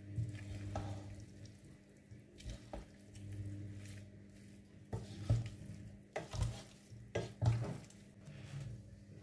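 Wooden spoon stirring a thick mix of pasta, crumbled sheep's cheese and sausage in a non-stick pot: moist squelching and scraping, with a string of short knocks and scrapes against the pot, most of them in the second half.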